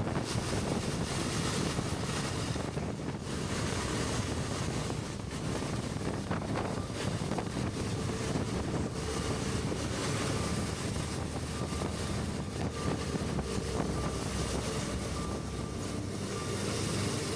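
Wind rushing over the microphone of a Suzuki V-Strom 650 motorcycle riding steadily on the highway, with muffled engine and road noise underneath.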